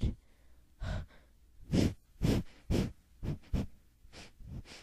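Breathing effect for a clay T-Rex: about eight short, breathy huffs with no clear pitch, some coming in quick pairs.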